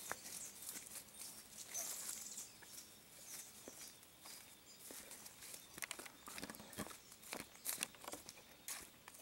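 Footsteps and rustling in dry leaves and undergrowth: irregular crackles and snaps of twigs and leaves.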